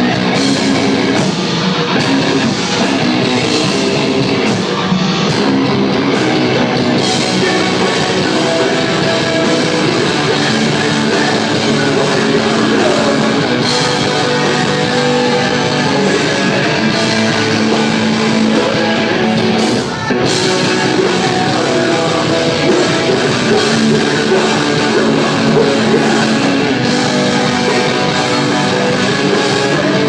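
A metalcore band playing live and loud: electric guitars, bass and drum kit, with a momentary break about twenty seconds in.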